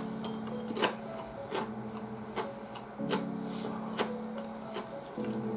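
Soft background music: sustained chords that change every couple of seconds, with a regular tick about every 0.8 seconds.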